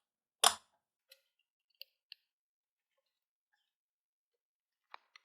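A 3D-printed Y-stepper housing cover being fitted back on: one sharp plastic click about half a second in, then a few faint ticks and a couple of small clicks near the end.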